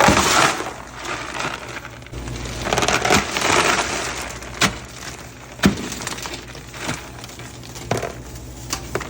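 Brittle freeze-dried candy pieces clattering and crackling against each other and a hard surface, with a few sharper clinks about four and a half, five and a half and eight seconds in.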